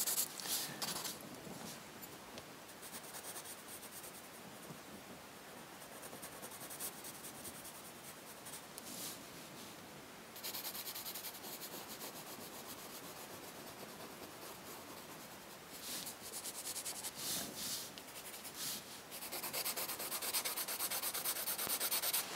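Soft graphite pencil hatching on paper, quick back-and-forth scratchy strokes laying in shading over the dark areas. The strokes get louder about ten seconds in and again near the end.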